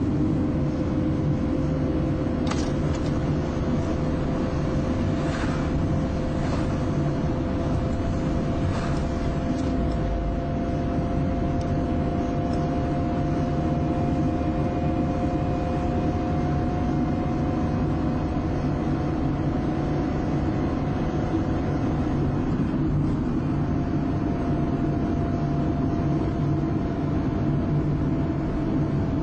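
Car cabin sound while driving at highway speed: steady engine and road rumble with a constant whine, and a few faint ticks in the first ten seconds.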